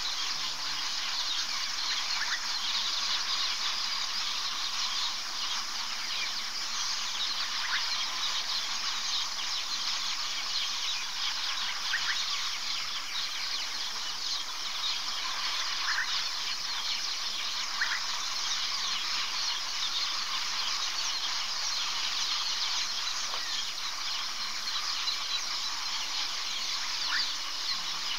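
A steady, shrill chorus of insects at dusk, dense and unbroken, with a few short chirps standing out now and then.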